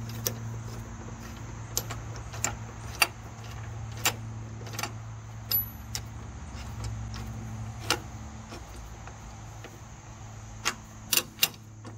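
Irregular sharp metallic clicks and clinks of a hand-held socket on a bolt and steel grille-guard bracket as the bolt is turned in by hand, with a few louder clicks near the end, over a steady low hum.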